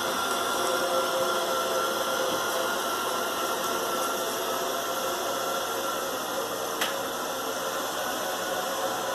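Shark ION RV750 robot vacuum running: a steady motor hum with a thin whine over it, and a single light click about seven seconds in.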